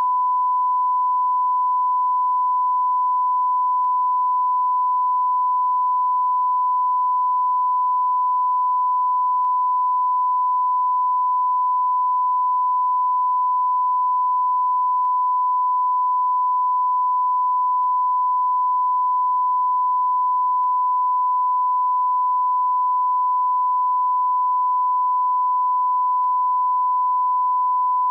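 Beep sound effect: one steady, pure electronic tone, held at a constant pitch and level without a break.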